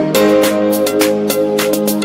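Intro music with a steady beat: sustained pitched notes over regular percussion hits.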